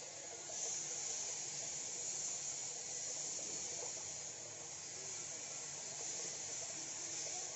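Small koi pond waterfall splashing steadily into the pond, a continuous hiss of falling water, a little louder from about half a second in.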